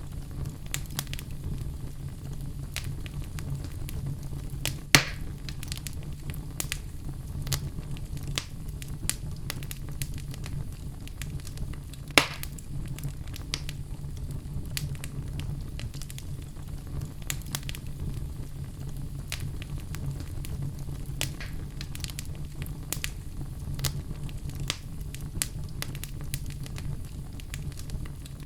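Fire burning in a fireplace: a steady low rumble of flames with frequent small crackles, and two sharper, louder pops, about five seconds in and about twelve seconds in.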